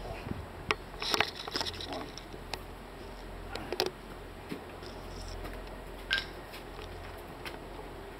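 Handling noise from a handheld camera being moved about: scattered soft clicks and rustles over a steady low hum.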